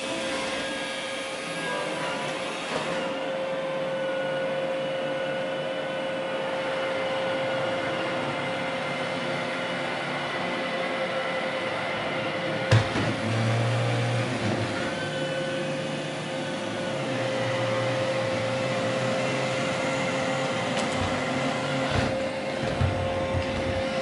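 iRobot Roomba i3 robot vacuum running as it cleans a flat-woven rug: a steady motor whine with brush and suction noise. A single sharp knock comes about halfway through.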